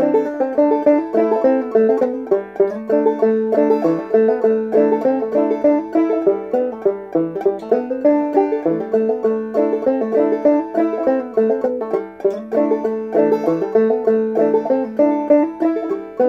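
Gold Tone CC-OT open-back five-string banjo played clawhammer style: a modal fiddle tune in sawmill (mountain modal) tuning, capoed up two frets, picked in a steady, even rhythm.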